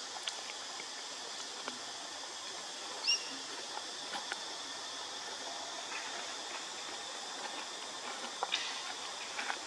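Steady outdoor background hiss with one short, high squeak about three seconds in and a few faint clicks near the end.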